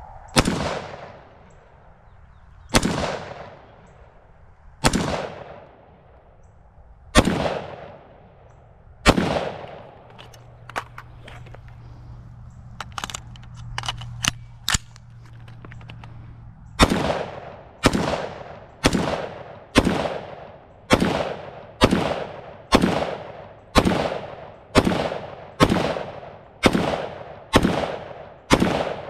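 Daniel Defense MK18 short-barrelled 5.56 mm rifle firing single shots in semi-auto: five shots about two seconds apart, a pause of about seven seconds with a few light clicks, then about thirteen shots at roughly one a second. Each report trails off in a short echo.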